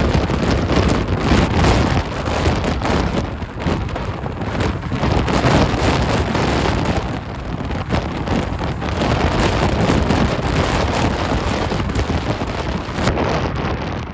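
Strong gusting wind buffeting the microphone: a loud, low rumble that swells and eases with each gust, with bursts of crackle.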